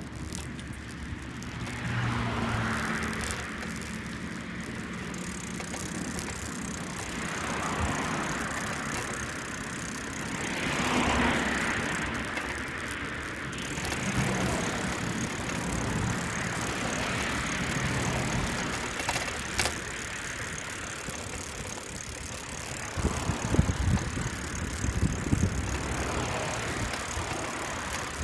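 Riding noise from a bicycle on a paved path: a steady rumble, with cars passing on the road alongside several times, each swelling up and fading. Near the end come a run of jolts and rattles from the bike.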